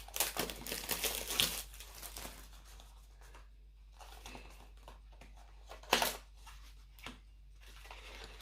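Plastic packaging crinkling and rustling as it is pulled open and unwrapped by hand, busiest in the first two seconds, with a sharper, louder crackle about six seconds in and another a second later.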